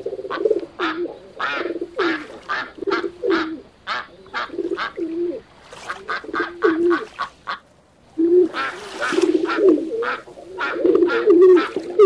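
Pigeons cooing with ducks quacking, many short calls following one another quickly, with a brief lull about two-thirds of the way through.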